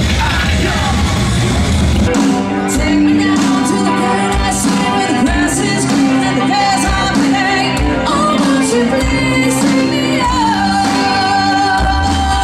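A motorcycle engine rumbles for about the first two seconds. Then a live rock band plays, with a woman singing over a steady drum beat, holding one long note near the end.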